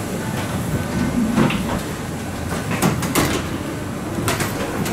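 Passengers walking up a jet bridge: rolling suitcase wheels and footsteps over a steady low rumble, with several sharp clacks as wheels and feet cross the floor.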